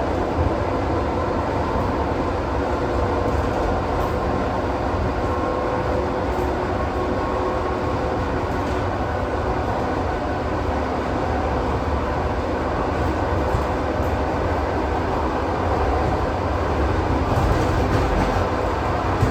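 ED4M electric multiple unit running along the line, a steady rumble of wheels on rail and running gear.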